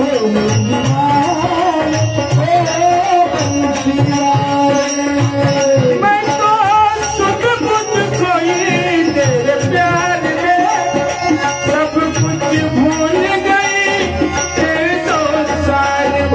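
Indian devotional bhajan music: a bending melody over steady held notes, with small hand cymbals and tabla keeping a steady beat.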